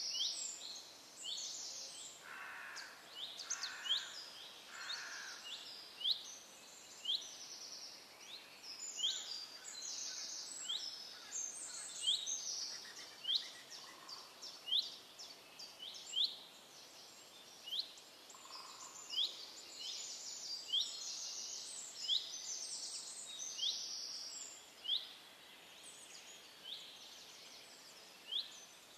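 Small birds chirping: short, high chirps repeating about once or twice a second, over a faint outdoor background.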